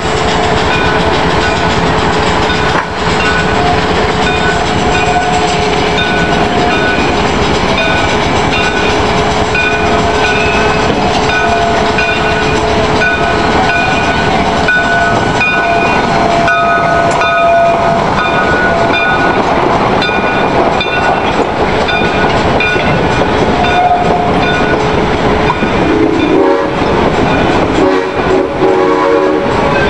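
Narrow-gauge steam locomotive running close past, hissing steam, followed by loaded freight flatcars rolling by with a clickety-clack over the rail joints. Steady ringing tones sit over the noise for the first two-thirds, and the sound turns choppier near the end as the cars go by.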